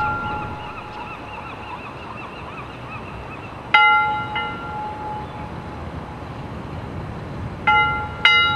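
A bell struck twice in quick succession, then twice again about four seconds later, each strike ringing out and slowly fading, over steady street noise.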